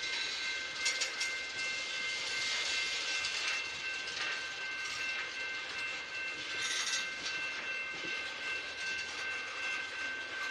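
Freight train tank cars rolling past, with a steady rumble of wheels on rail and scattered sharp clanks. A steady high-pitched ringing tone runs underneath.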